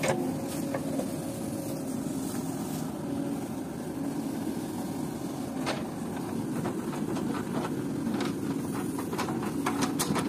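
JCB backhoe loader's diesel engine running steadily while its backhoe bucket digs and scrapes stony ground. Stones and the bucket knock sharply once or twice, then clatter repeatedly over the last couple of seconds.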